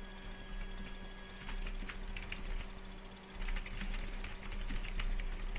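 Computer keyboard being typed on: runs of quick key clicks starting about a second and a half in, over a steady low electrical hum.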